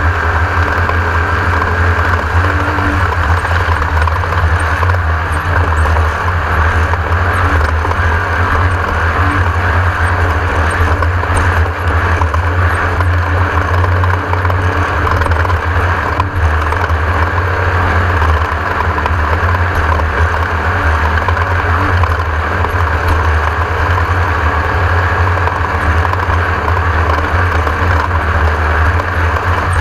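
Class 1600 off-road race buggy's air-cooled VW engine running steadily under load at speed.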